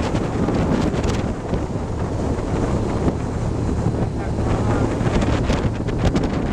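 Heavy wind rushing over the microphone of a moving motorcycle, over the low steady drone of a BMW R1200GS flat-twin engine at road speed.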